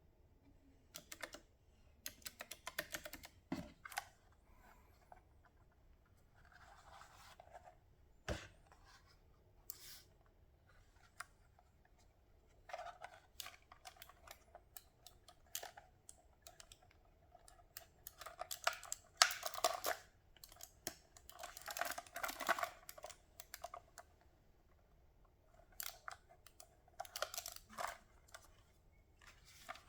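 Irregular bursts of clicks and clatter from the Redragon TL84-B mechanical keyboard as its keys are pressed and it is handled, with some softer rustling between. There is one sharper knock about eight seconds in, and the densest clatter comes about two-thirds of the way through.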